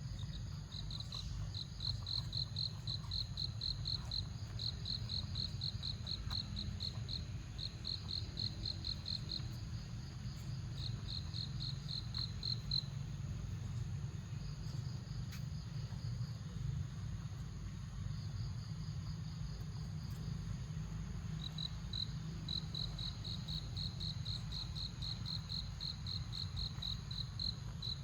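Insects chirping: runs of evenly spaced high pulses, about five a second, starting and stopping in stretches of a few seconds, with a long gap in the middle. A steady low rumble lies underneath.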